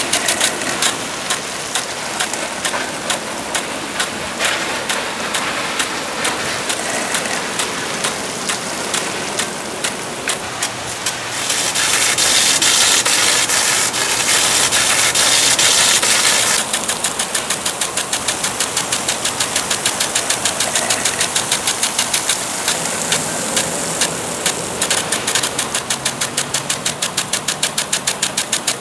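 Lawn sprinkler spraying water with a rapid, steady ticking. The rush of spray swells louder for about five seconds in the middle, then drops back under the ticking.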